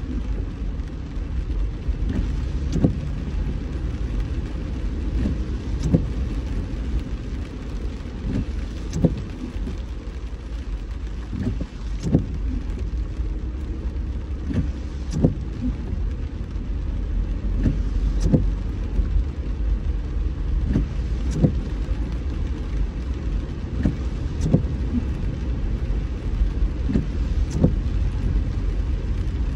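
Steady road and engine rumble of a car driving in the rain, with a short sharp knock about every three seconds.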